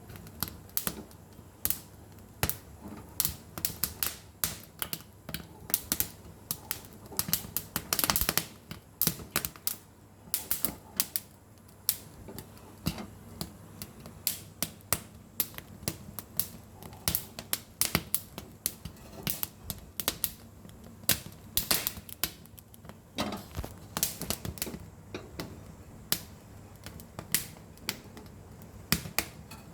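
Many small, sharp pops at an irregular pace, sometimes several a second, with a few louder ones around eight seconds and twenty-one seconds in, over a faint low hum.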